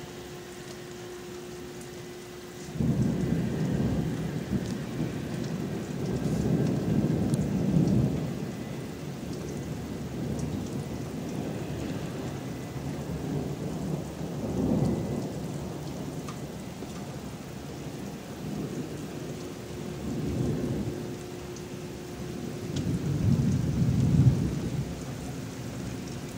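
Thunder starts suddenly about three seconds in and rumbles on, swelling several times and loudest near the end, over steady rain.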